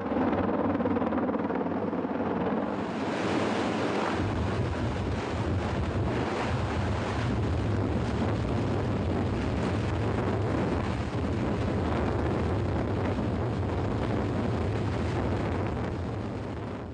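Mil Mi-26 heavy-lift helicopter's rotor and turbine engines heard close by during its landing: a steady low rumble under a broad rushing noise, with wind buffeting the microphone. It starts abruptly and holds steady.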